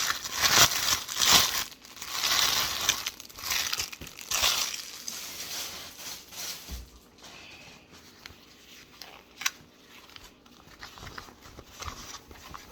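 Packaging crinkling and rustling as a bucket hat is unwrapped, loud for about the first five seconds and then fainter handling with a few light clicks.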